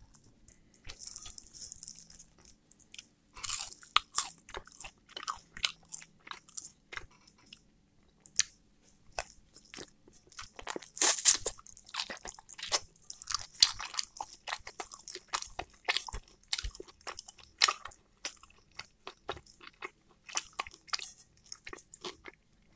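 Close-miked chewing and biting of chicken: a quick, irregular run of wet clicks and crunches.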